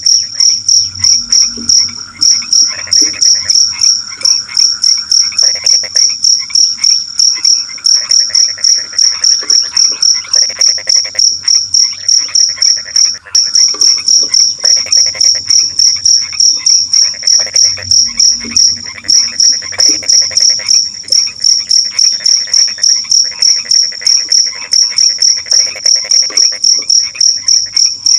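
Night crickets chirping in a rapid, even pulse that never lets up. Underneath, other night animals give croaking calls in short bouts lasting about a second, starting and stopping every few seconds.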